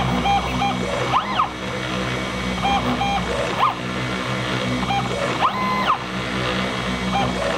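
CNC machine milling machinable wax: its stepper motors whine, the pitch rising, holding and falling again several times as the axes speed up and slow down between moves, over a steady low hum from the cutting.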